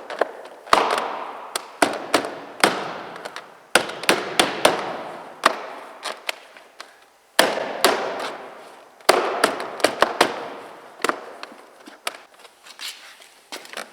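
Plastic decorative trim cover of a Renault Duster's inner door handle being pressed and knocked into place: a run of sharp plastic clicks and knocks, coming in bunches a second or two apart.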